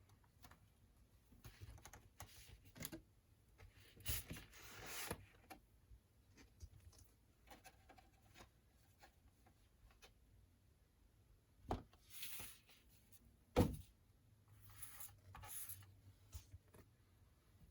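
Quiet handling of a vinyl record package: light rustles and slides of cardboard and plastic wrap with scattered small clicks, and a single sharp knock a little after halfway.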